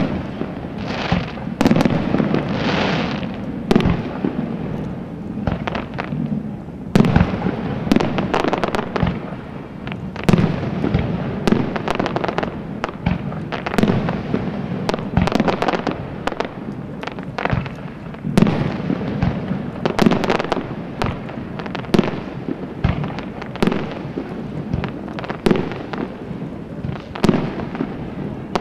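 Fireworks display: many overlapping bangs and pops of bursting shells in quick succession, with hissing and crackling between them, going on without a break.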